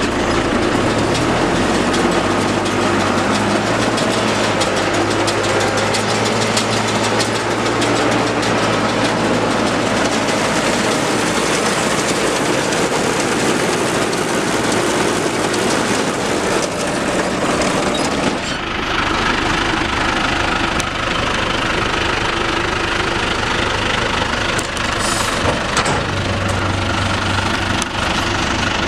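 Tractor engine running steadily, presumably hooked to a John Deere 535 round baler; its sound changes a little over halfway through.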